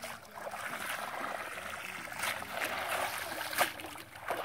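Shallow muddy water sloshing and splashing as a cast net is hauled in by hand through it, with a few sharper splashes in the second half.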